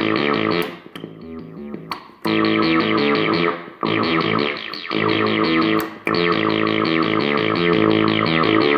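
Sequential Circuits Pro-One analog monophonic synthesizer playing a fast, repeating run of notes with a bright, buzzy tone, breaking off briefly a few times.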